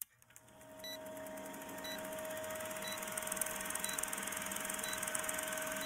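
Film-leader countdown sound effect: a steady projector-like clatter and hiss, fading in over the first second, with a short high beep about once a second as the count goes down.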